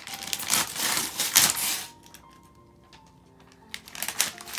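Wrapping paper being ripped and crinkled off a gift box, in two bouts: about two seconds of tearing, a quiet pause of nearly two seconds, then more tearing near the end.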